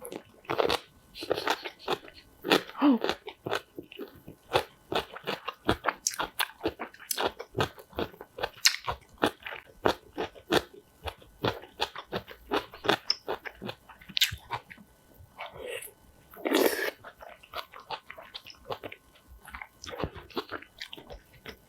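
Close-miked eating: kimchi crunched and chewed in a rapid run of crisp bites and crunches, thinning out in the last third.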